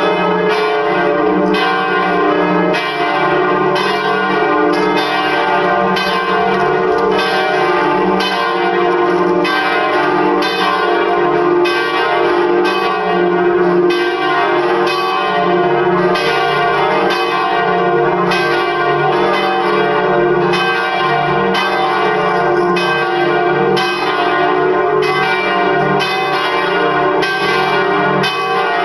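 Full swinging peal of four church bells tuned D, D-sharp, F and G, ringing together as a dense, unbroken stream of overlapping strikes.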